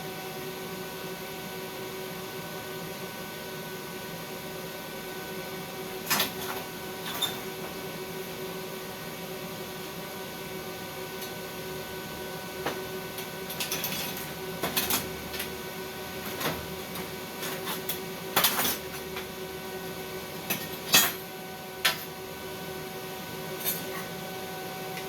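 Steady electrical hum with several fixed tones, joined from about six seconds in by a dozen scattered sharp metallic clinks and knocks, from metal being handled at a stick-welding setup.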